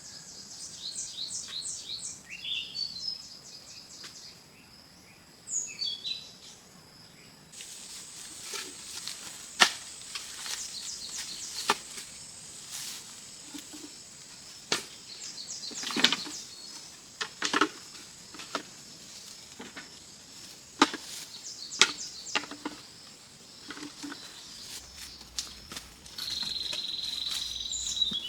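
Birds chirping in quick repeated notes, then a steady high insect drone with irregular sharp knocks every second or few seconds. Near the end a high, even insect buzz sets in.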